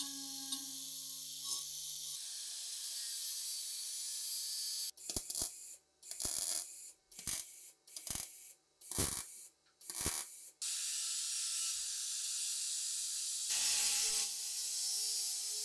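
Power tools grinding rust off old steel gun parts, in three edited takes. First a small flexible-shaft rotary tool whines steadily for about two seconds. Then about six short, hissing grinding passes throw sparks, and an angle grinder's abrasive disc takes over near the end.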